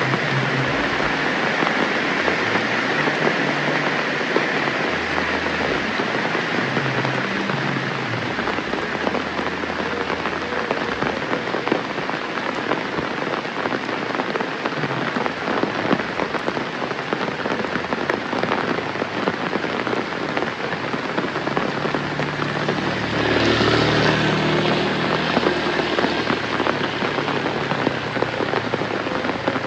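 Steady rain falling. About 23 seconds in, a louder pitched sound rises over it for two or three seconds, then fades.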